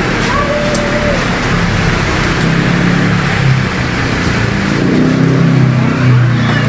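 A motor vehicle engine running close by, its low hum building from about halfway through, over a steady hiss from the gas-stove burner and the simmering wok of sauce.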